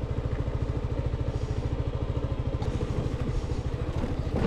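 2018 Yamaha XMAX 300 scooter's single-cylinder engine idling with a steady, even pulse.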